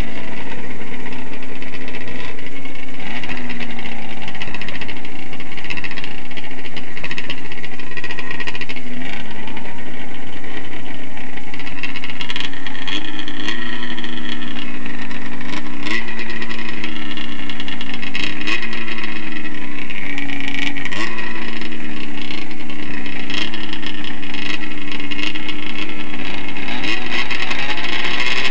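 Racing snowmobile's 500 cc two-stroke engine running hard, heard from on board. Its pitch repeatedly sags and jumps back up every couple of seconds in the second half, with a steady rush of wind and noise over it.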